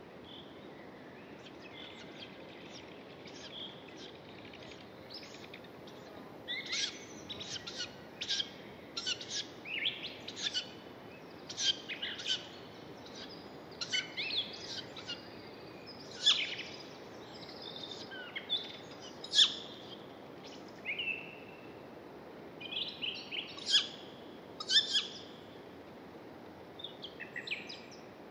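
Birds calling and singing: a run of short, high chirps and whistles, sparse at first and busier from about six seconds in, over a faint steady hiss.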